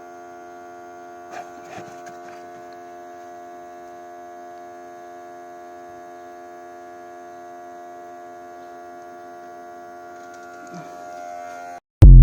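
Smoke machine's air pump humming steadily while it feeds smoke into a VW Golf 5's intake to find a vacuum leak, with a couple of faint clicks about a second and a half in. Near the end the hum stops abruptly and a short, very loud thump follows.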